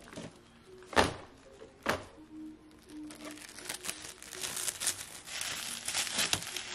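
Clear plastic wrap crinkling as it is pulled off an RC truck's body, a dense crackle through the second half. Two sharp knocks come about one and two seconds in.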